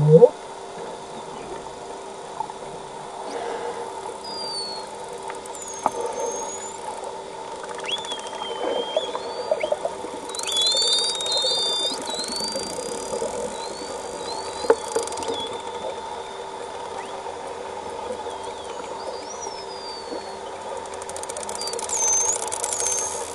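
False killer whales whistling underwater: a string of rising and falling whistles, several overlapping at once about halfway through, with scattered clicks. A steady low hum runs underneath.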